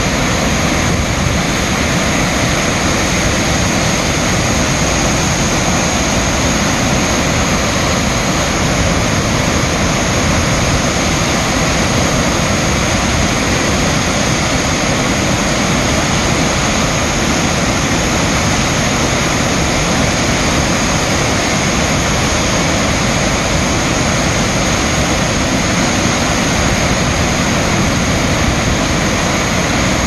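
Hayden Falls running high after heavy rain, a wide curtain of water pouring into its plunge pool: a loud, steady rush of falling water.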